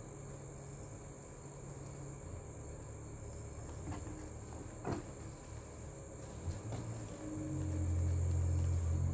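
Faint rustling and light clicks of stiff fabric and crinoline being pleated by hand. A steady high-pitched whine runs underneath throughout, and a low hum grows louder near the end.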